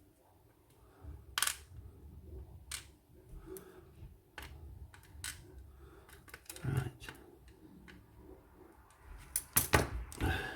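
Small brass lock pins and springs clicking and tapping as they are tipped out and moved about in a metal pinning tray. The clicks come singly at irregular intervals, with a louder run of them near the end.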